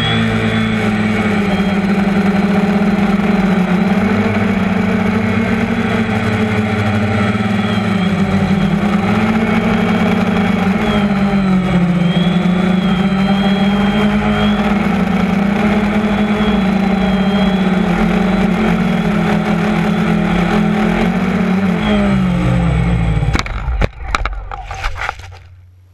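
DJI Phantom 1 quadcopter's electric motors and propellers buzzing loudly, heard from the GoPro mounted on the drone, the pitch wavering with the throttle. Near the end the buzz drops in pitch as the motors spin down, followed by a few knocks as the drone comes down on the grass.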